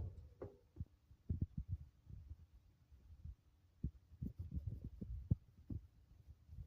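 Irregular soft low thumps and rumble, several a second, with a brief faint higher tone about half a second in.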